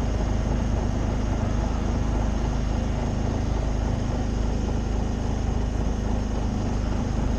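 A sailing yacht's inboard engine running steadily while motoring, a low even drone with no change in speed.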